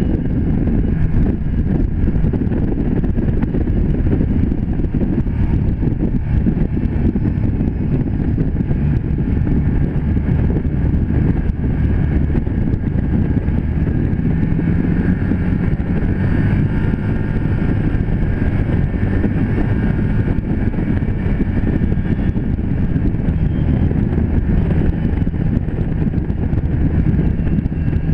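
Can-Am Commander 1000 side-by-side's V-twin engine running steadily at cruising speed, heard from the cab, with gravel road noise and wind buffeting the microphone.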